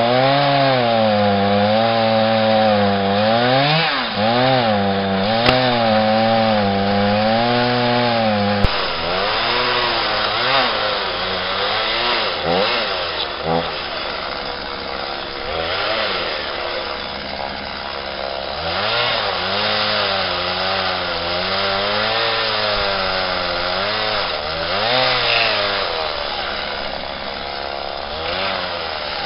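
Chainsaw cutting into a wooden log for carving, its engine pitch rising and falling again and again as the chain bites into the wood and eases off.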